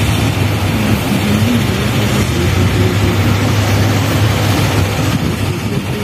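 Heavy diesel engine running steadily with a deep, constant hum.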